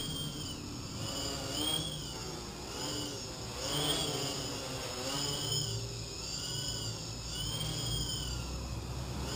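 Multicopter's electric motors and propellers whining, their pitch swinging up and down about once a second as the flight controller keeps changing motor speed to hold height and position.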